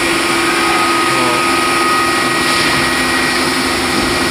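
Steady hum and whir of CNC lathe shop machinery running, with a few held tones over an even noise.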